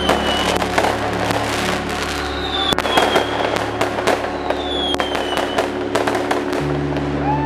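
Fireworks going off: a dense run of bangs and crackles with several short falling whistles, over steady music.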